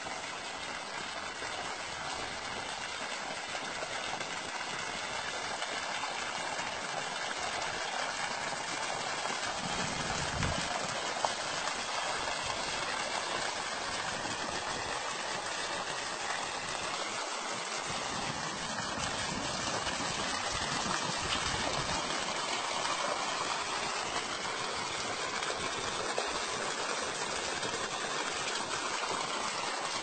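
Water gushing steadily out of a split in an old tree trunk and splashing into the flooded puddle at its base.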